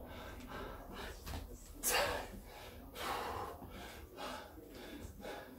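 A man breathing hard during banded squats: a run of short, forceful breaths, the loudest a sharp exhale about two seconds in and another about a second later.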